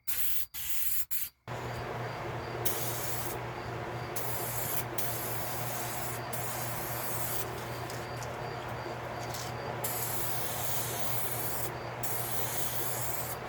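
Aerosol can of 2K clear coat spraying: three short blasts, then a long continuous hiss with brief let-offs.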